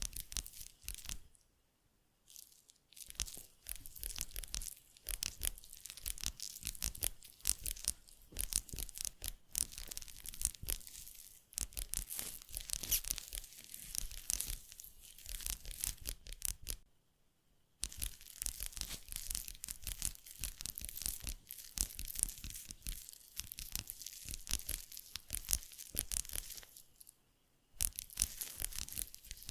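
Close-miked ASMR tactile sounds: dense, rapid crackling and crinkling, layered over one another. It stops briefly three times, about two seconds in, about seventeen seconds in and near the end.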